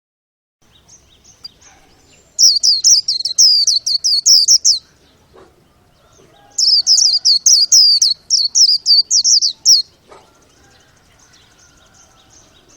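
A pet bird singing: two bursts of rapid, repeated high chirps that slide downward in pitch, about five notes a second, each burst lasting two to three seconds.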